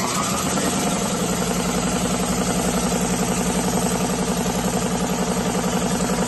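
Electric piston air compressor running steadily, its pump strokes giving a fast, even pulse. The head valves are not holding the air and blow it back out, which the owner gives as the reason the compressor only reaches about 40 psi.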